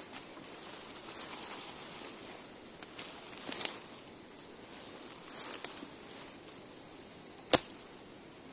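Machete working through dry leaf litter and weeds at ground level: a few soft scraping rustles, then one sharp chop near the end, the loudest sound.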